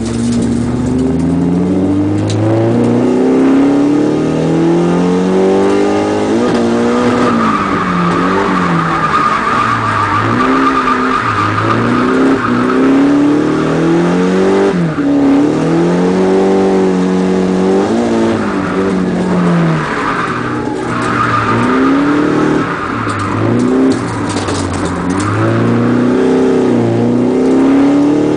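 Car engine revving up and falling back over and over while drifting, heard from inside the cabin, with the tyres squealing in two long stretches, about a third of the way in and again about two-thirds through.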